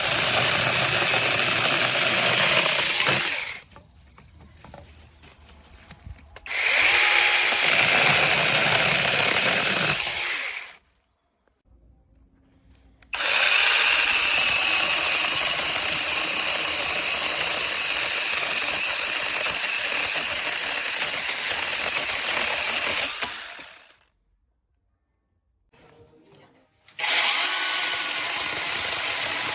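Battery-powered 21V mini chainsaw with a 6-inch bar, running in four spells: from the start to about 3.5 seconds, from about 6.5 to 10.5 seconds, a long run from about 13 to 23.5 seconds, and again from about 27 seconds on. Between the spells it goes almost quiet.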